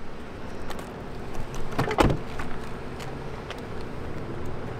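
A minivan door being handled, with clicks and a loud clunk about two seconds in, over steady outdoor background noise.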